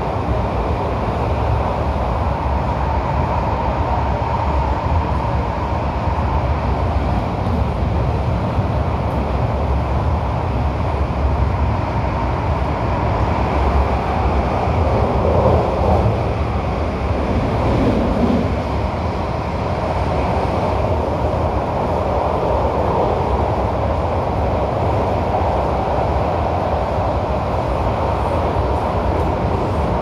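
MTR Tung Chung line A-train EMU running at speed, heard from inside the car: a steady rumble of wheels on rail and running gear, with a brief swell about halfway through.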